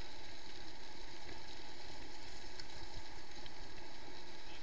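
Steady rushing noise of a mountain bike descending a gravel track at speed: wind on an action camera's microphone and tyres rolling over gravel, with a few faint clicks.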